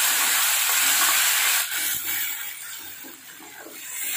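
Freshly added wet tomato, green chili and ginger paste sizzling loudly in hot oil with fried onions in a steel kadai; the sizzle drops off about a second and a half in. A steel spatula then stirs and scrapes the mixture around the pan in repeated strokes.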